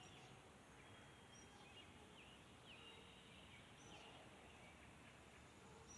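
Near silence: faint steady background noise with a few faint, short falling chirps.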